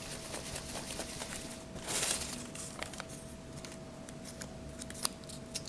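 Faint rustling and small clicks of folded paper name slips being stirred in a hat and one drawn out and unfolded, with a brief louder rustle about two seconds in.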